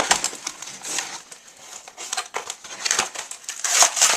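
Plastic product packaging crinkling and crackling as it is handled, in a dense run of irregular crackles that grows loudest near the end.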